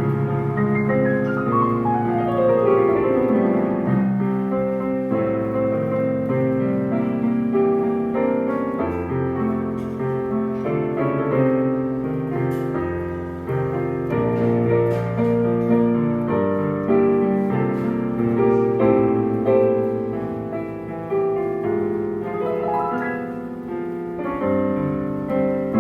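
Solo piano playing a slow jazz ballad in chords and melody, with a fast descending run about a second in.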